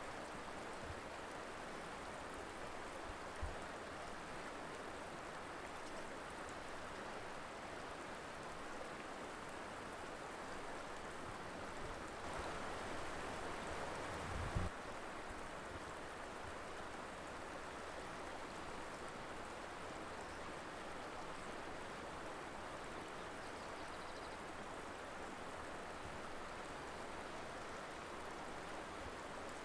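Colorado River flowing steadily over rocks, an even rushing of water that swells slightly for a couple of seconds near the middle. Two brief low thumps, one a few seconds in and one about halfway through.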